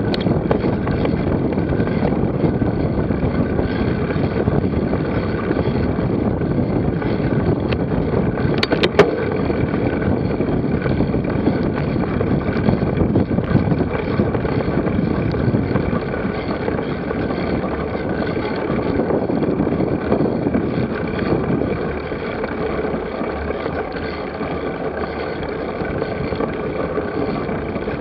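Steady rushing noise of movement with wind on the microphone and a dense, fine rattle, and one sharp click about nine seconds in. It eases off a little near the end.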